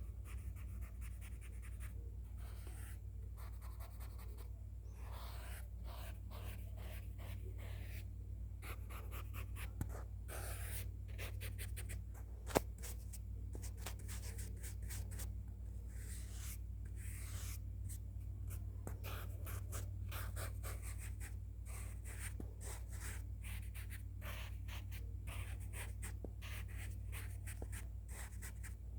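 Close-up scratchy sketching strokes against the microphone, coming in quick, irregular runs, with one sharp click about twelve and a half seconds in.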